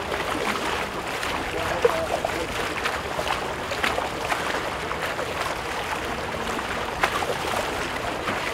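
Water lapping and splashing, with irregular sharper splashes every second or so.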